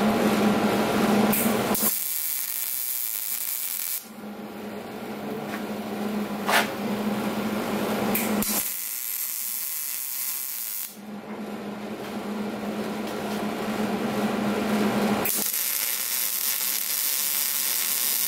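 Wire-feed welder welding on steel square tubing: three runs of crackling arc hiss, each two to three seconds long. A steady low hum fills the gaps between them.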